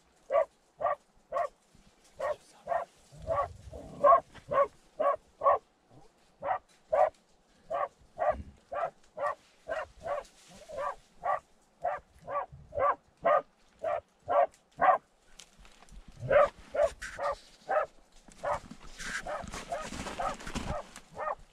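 Terrier barking from inside a badger tunnel, a steady run of barks about two a second with a couple of short pauses. Near the end the barks give way to a rougher, noisier stretch.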